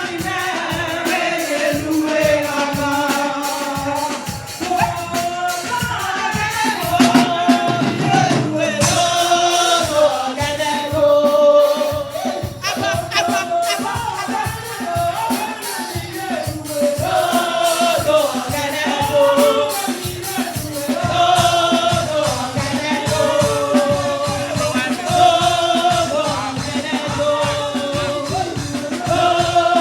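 Gospel praise music at a church service: voices singing a melody together, over instrumental backing and steady hand percussion.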